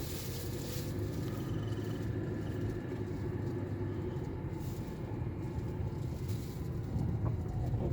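Mercedes-Benz E200 (W211) sedan driving, heard from inside the cabin as a steady low road and drive rumble, with a few light knocks near the end.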